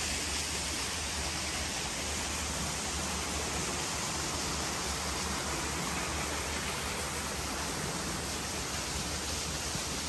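Steady rush of water tumbling over rocks in a shallow stream.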